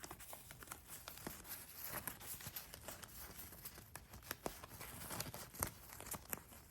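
Toy play money being handled close to the microphone: many small, quiet clicks and rustles come at irregular intervals as the pieces are picked up and sorted.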